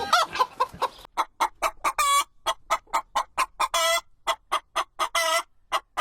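Domestic hen clucking: a fast series of short clucks, about four or five a second, with a few longer drawn-out calls among them.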